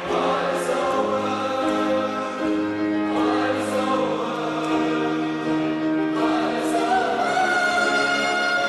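A group of stage performers singing a song in chorus, several voices holding long notes together, the chord changing every few seconds.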